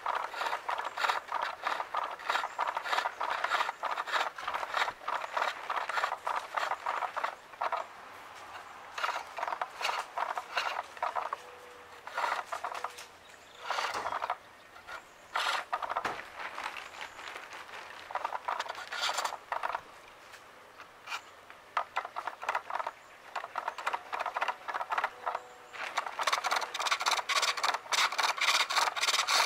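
A skew chisel cutting a maple spool on a foot-powered pole lathe: a scraping cut in quick repeated strokes as the work spins back and forth. The strokes thin out through the middle and come thick again near the end.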